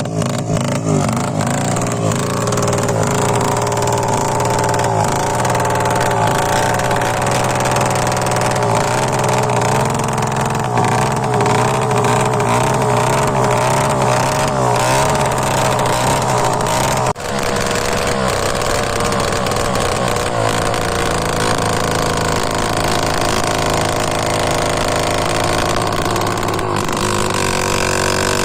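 Motorcycle engine running steadily, its exhaust blowing through a small clay surahi pot tied onto the silencer, which alters the exhaust note. The pitch wavers slightly, with a momentary drop about seventeen seconds in.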